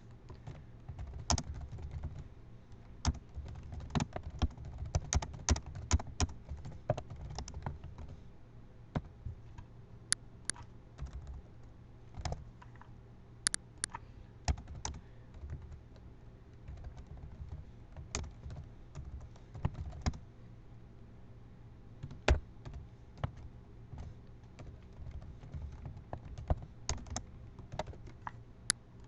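Computer keyboard being typed on quickly and continuously, a dense, irregular patter of key clicks with occasional louder strokes, over a steady low hum.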